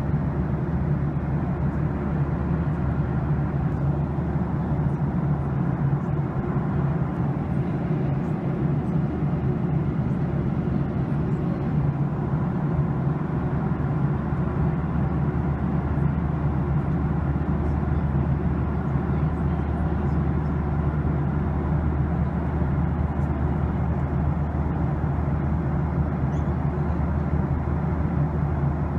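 Steady cabin noise of a jet airliner in flight: an even rush of air and engine drone with a low, constant hum.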